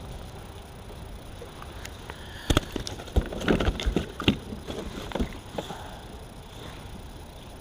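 A cluster of knocks and clatter, hard objects bumping on a kayak's plastic deck as gear is handled, over a steady low rumble of wind and water.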